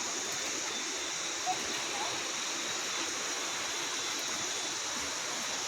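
Steady outdoor hiss with no distinct events, strongest in a high band, with a couple of tiny faint chirps.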